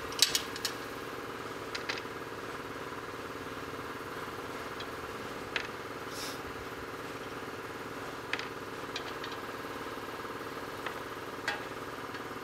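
A few light metallic clinks and taps as a bare sheet-metal fuel tank is handled in gloved hands, over a steady hum.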